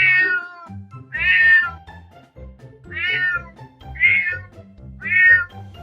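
Domestic cat meowing five times, each meow about half a second long, over background music.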